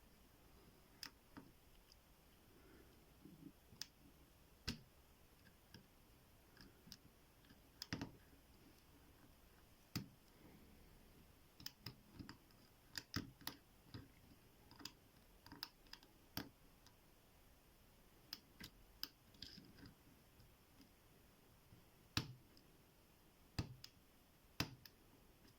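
Irregular, faint metallic clicks and ticks of a lock pick and tension wrench working the pin stack of an ABUS T65AL/40 padlock, with a few sharper clicks standing out.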